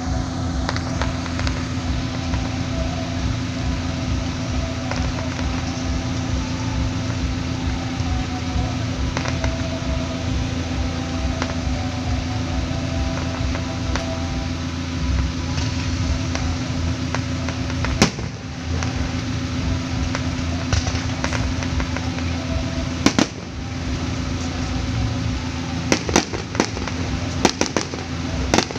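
Distant fireworks display: a steady low rumble and hum with scattered sharp reports, then a quick run of crackling pops near the end.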